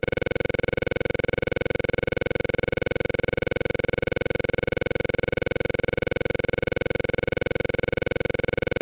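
A steady, rapidly pulsing buzz with a few fixed tones, unchanging throughout.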